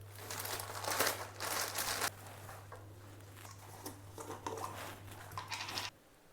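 Crinkling and rustling of handled packaging, densest in the first two seconds and then in sparser bursts, over a steady low hum that cuts off abruptly near the end.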